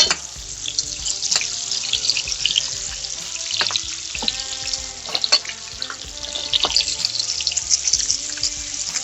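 Strip loin steaks frying in hot butter and garlic in a pan: a steady crackling sizzle with scattered sharp pops.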